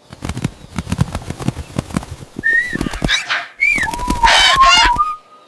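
Birds whistling and squawking in short calls, with rising-and-falling whistles about halfway through and a loud squawking burst near the end, after a quick run of taps at the start.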